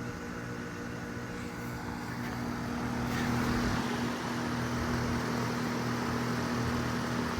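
A 2011 Bryant Preferred Series 2.5-ton heat pump outdoor unit running: the steady hum of its Copeland scroll compressor under the rush of air from the condenser fan, which grows louder about three seconds in.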